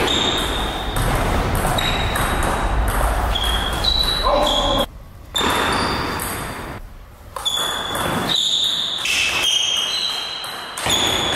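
Table tennis rally: a celluloid ball clicking off the table and rubber-faced bats in quick exchanges, with voices in the background.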